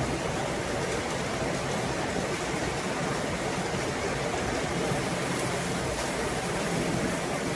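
Storm rain falling steadily: an even, unbroken rush of noise.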